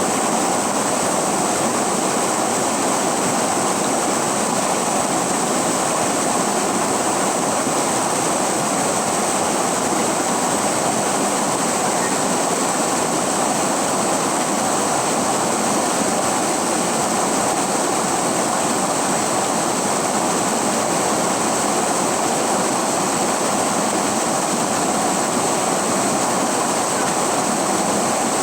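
River water flowing: a steady, even rush of water that does not let up.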